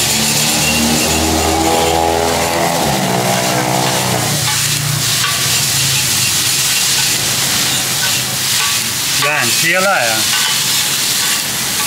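Steady sizzling of food frying in a street-stall wok. A passing vehicle's engine sounds over it for the first four seconds or so, its pitch dropping about three seconds in. A voice is heard briefly near the end.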